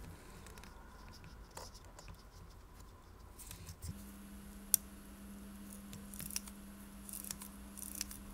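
Small clicks and scratches of fingers handling an ETA 2824-2 watch movement and turning its crown. There is one sharp click a little under five seconds in, and a few quick clusters of ticks near the end.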